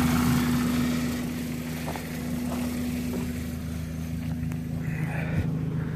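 Toyota Corolla XRS's 2ZZ inline-four engine idling steadily while it warms up with its cooling system being bled of air. The hum drops in level between one and two seconds in, then holds steady.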